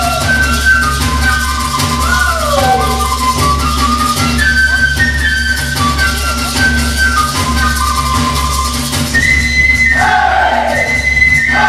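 Folk dance music: a high flute melody moving in short steps over a steady low beat, with rattles shaking throughout. Sliding calls that fall in pitch come about two seconds in and again near the end.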